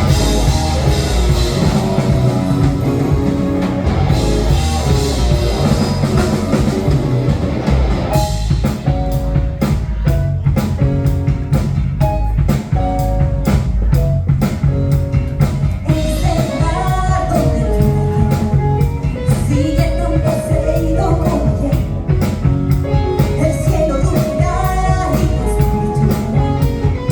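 Live rock-funk fusion band playing with drums, bass, guitar and keyboards. A dense full sound gives way about eight seconds in to tight, regular stabbed beats, and a gliding lead melody comes in over them about halfway through.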